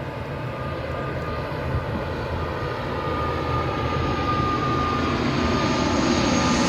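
Aeroplane on its landing approach: engine noise with a steady high whine, growing steadily louder as it comes closer.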